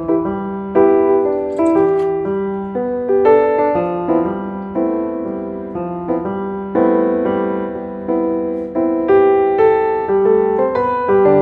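Background music: a gentle piano piece playing chords and a melody, its notes struck and left to ring.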